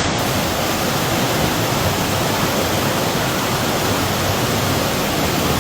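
Steady, even rush of floodwater in heavy rainfall, with no breaks.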